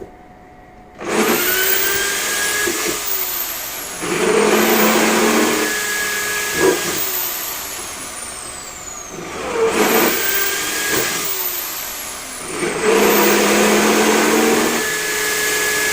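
Electric drill boring oil-flow holes into a motorcycle's metal clutch bell, the motor whining and bogging as the bit cuts. It surges up four times, each time spinning up with a high whine that then falls away.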